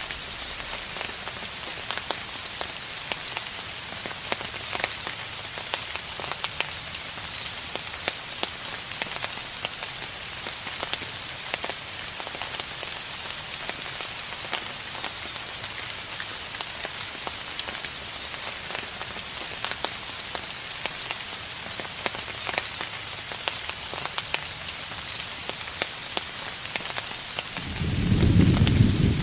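Steady rain falling, an even hiss with many individual drops ticking. Near the end a low rumble of distant thunder rolls in and becomes the loudest sound.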